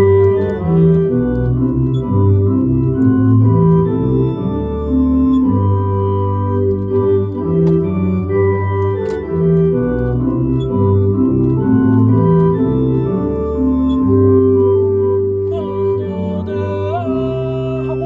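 Two-manual organ playing a hymn accompaniment in 3/4 time with sustained full chords that change from beat to beat. It is phrased strong-weak-weak, in two-bar phrases.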